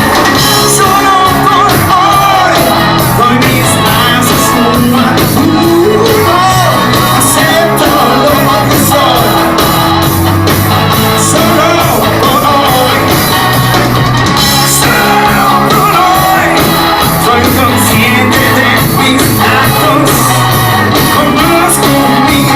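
Rock band playing a song live, with a loud sung vocal over drums and guitars in a large hall.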